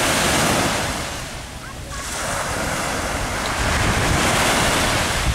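Small waves breaking and washing up on a sandy shore: loud at first, easing about a second and a half in, then building again with the next wave from about two seconds. Wind buffets the microphone with a low rumble.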